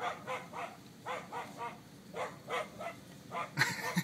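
Dogs barking repeatedly, in short bursts of two or three barks a second, with a louder burst near the end, heard from inside a car.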